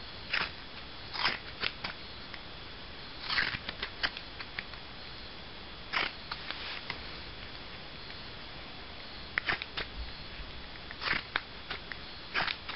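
Scissors snipping through a knitted sock worn on the foot: short, crisp snips at irregular intervals, several in quick succession around the first few seconds, a single one near the middle, then a pause of about three seconds before more snips resume.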